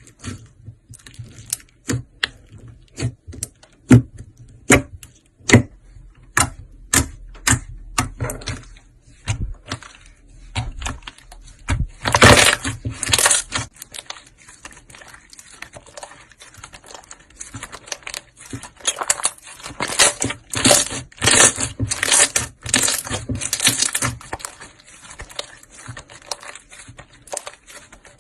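Slime being pressed and worked by hand, giving a run of sharp pops about two a second, then bursts of dense crackling.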